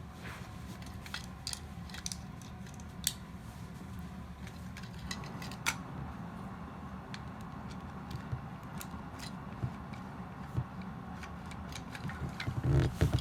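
Scattered clicks and light taps of small plastic toy-robot parts being handled and worked apart, over a steady low hum, with a few louder knocks near the end.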